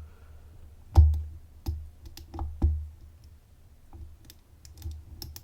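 Metal lock pick clicking and tapping against the pins inside a dimple Euro cylinder held under heavy tension: several sharp clicks with dull knocks, about a second in and through the middle, then fainter light ticks.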